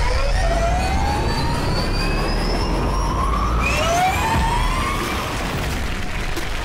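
Whine of an electric car accelerating: several pitches glide upward together over a low rumble, and a second rising sweep begins about four seconds in.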